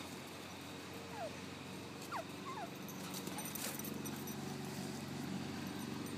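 Dogs running hard across grass, paws thudding, with a few short high falling whines or yips about one to two and a half seconds in, over a steady low hum.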